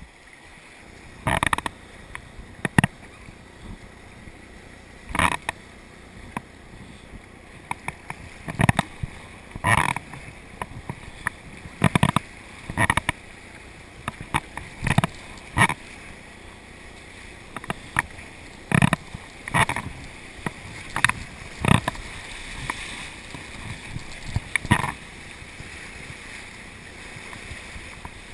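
Whitewater rapids rushing steadily around a kayak, with loud, irregular splashes every second or two as paddle strokes and breaking waves hit the boat's bow.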